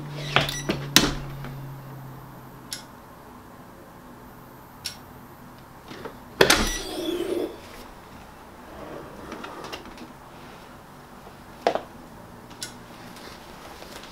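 A clamshell heat press with a slide-out drawer being worked by hand: a low steady hum that fades out about two seconds in, a few sharp clicks near the start, one loud metallic clunk about six and a half seconds in followed by a brief scraping, then a few small knocks as the shirt is handled.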